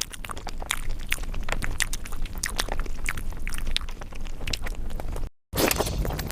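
Close-miked eating sounds: chewing with many short, irregular wet mouth clicks and smacks while eating spicy egg curry. The sound drops out completely for a moment about five seconds in.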